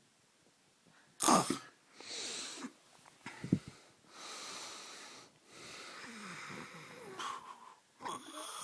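A man snoring heavily in his sleep: sharp, loud snorts about a second in, again at about three and a half seconds and loudest at the end, with long noisy breaths between. The snoring is put down by the uploader to too much beer.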